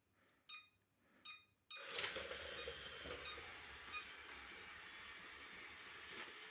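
iLife V7S Pro robot vacuum starting up: a series of six short electronic beeps, with its suction and brush motors starting about two seconds in and then running steadily.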